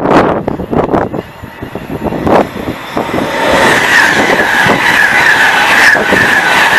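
A train passing at speed, its noise building about halfway in to a loud, steady rush with a repeating rhythmic clatter from the wheels on the rails. Before it, gusts of wind buffet the microphone.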